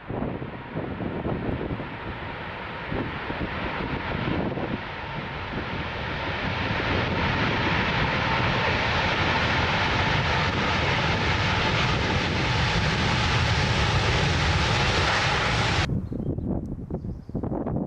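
Airliner's jet engines growing steadily louder as the plane approaches to land, with a faint steady whine under the rush. The sound cuts off abruptly near the end.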